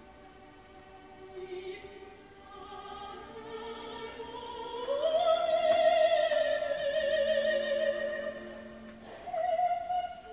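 Operatic soprano singing an aria with accompaniment underneath. Her line climbs and swells to a long, loud high note with vibrato, held for about four seconds, then she sings a shorter high note near the end.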